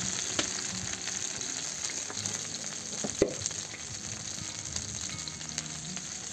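Sliced champignon mushrooms sizzling as they fry in hot oil on a steel saj griddle, just tipped in. There is one sharp click about three seconds in.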